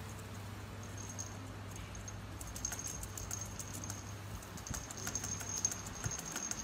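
Kitten playing with a feather wand toy on a wooden floor: quick light clicks and taps that start about two and a half seconds in and go on to the end, over a low steady hum.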